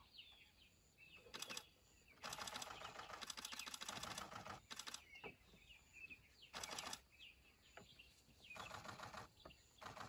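Camera shutters firing in rapid bursts of clicks. The longest burst lasts about two seconds, a couple of seconds in, and several shorter bursts follow.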